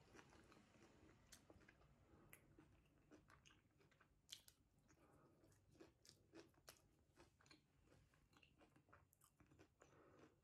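Faint chewing of a cheese-filled puff pastry: soft, irregular mouth clicks and crunches, one a little louder about four seconds in.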